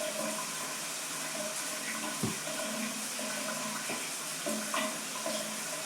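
Hot shower running steadily, an even spray hiss filling a small bathroom, with a single light knock about two seconds in.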